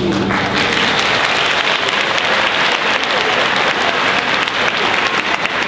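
Audience applauding, breaking out just as the final held note of a children's song stops at the very start.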